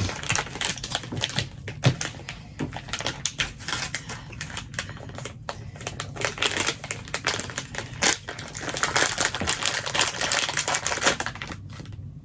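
Plastic toy packaging being handled and opened, a dense run of fast, irregular crackling and clicking that stops just before the end.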